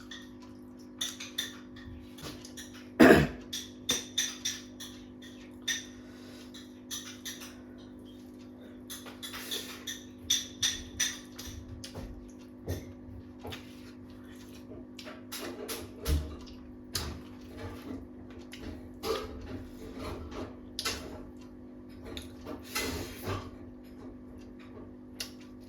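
Eating sounds: scattered clinks, taps and scrapes on a plate and chewing during a meal of goat meat and rice, irregular and of varying loudness, with a louder knock about 3 seconds in. A steady low hum runs underneath.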